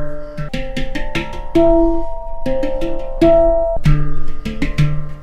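Budget 10-tone steel handpan in D minor, tuned to 432 Hz, played with bare hands: a run of struck notes that ring on and overlap, with light quick taps between them.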